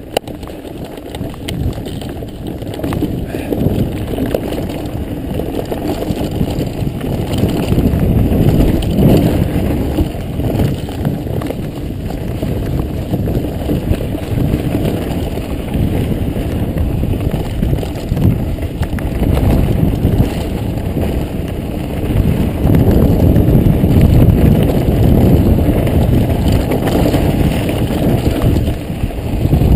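Mountain bike riding down a dirt singletrack: a constant rumble of the tyres over dirt and stones, with frequent knocks and rattles from the bike. It gets louder over the rockier stretch in the last third.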